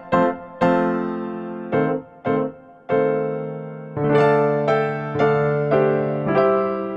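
Background music played on piano: slow melody notes and chords, each struck and left to fade.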